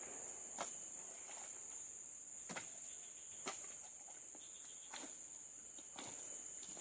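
Steady high-pitched chirring of insects, crickets or similar, with a few sharp clicks scattered through it.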